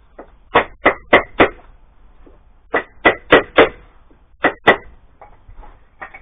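A series of sharp knocks in three quick runs (four, four, then two strikes, about three a second), as a panel is tapped into place in a shower cubicle being built in a van.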